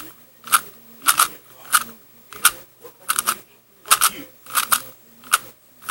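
Rubik's cube being turned face by face through a sequence of moves, each turn a short plastic clack, about one every two-thirds of a second, some in quick pairs.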